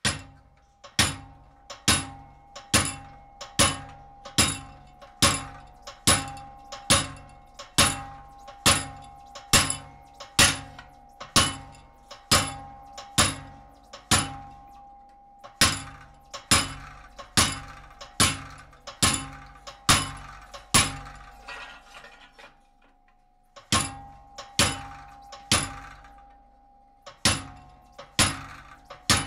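Treadle hammer striking a hand-held cold chisel that is cutting through cold sheet steel: sharp ringing blows a little more than once a second, with a steady ringing tone under them. The blows stop for about two seconds about three-quarters of the way through, then resume.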